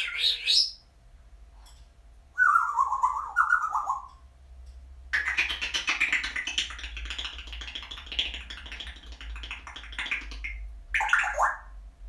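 African grey parrot vocalizing: a short rising squeak at the start, a falling whistle about two and a half seconds in, then about five seconds of indistinct chattering, and a brief falling call near the end.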